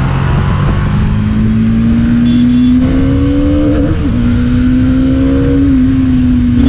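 Motorcycle engine pulling under load, its pitch climbing steadily, then dropping sharply about four seconds in at an upshift and climbing again, with wind rumbling on the rider's microphone.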